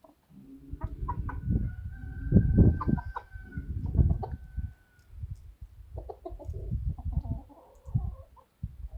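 Chickens clucking, with many dull knocks and thumps. A thin steady high tone is held for about four seconds starting about a second in.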